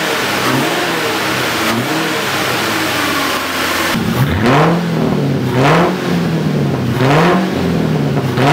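Engine being revved on the Lincoln Town Car chassis, first through the stock muffler with gentle wavering revs. About four seconds in, it switches to the same engine with the muffler cut off and a straight pipe welded in, giving about four sharp, louder rev blips roughly a second and a half apart.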